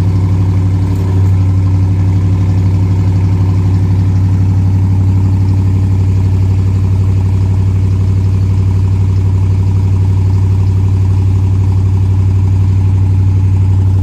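Dodge Challenger R/T's 5.7-litre HEMI V8, freshly started, idling steadily through its stock exhaust, with a deep low rumble.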